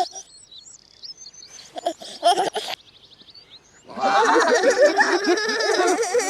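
Birdsong played in reverse: high chirps and trills with short squeaky bursts. About four seconds in, a louder, dense mix of reversed voices and music comes in.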